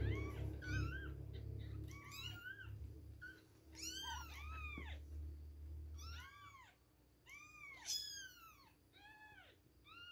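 Two-week-old kittens mewing: a string of a dozen or so thin, high mews, each rising then falling in pitch, some overlapping one another.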